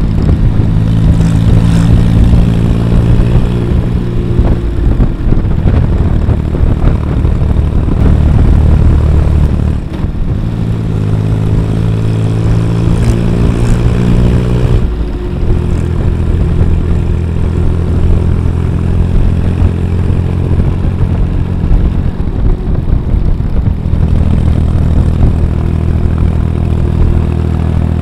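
Diesel motorcycle engine running steadily under way, heard from the rider's seat. The engine note breaks and changes pitch about 10 and 15 seconds in.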